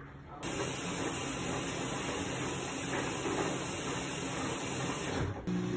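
GE UltraFresh front-load washer filling for its prewash: a steady hiss of water spraying into the drum, starting abruptly about half a second in and cutting off near the end, when a low hum from the washer starts.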